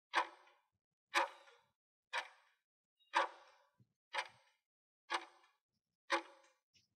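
Countdown timer sound effect: a sharp clock-like tick once a second, seven ticks in all.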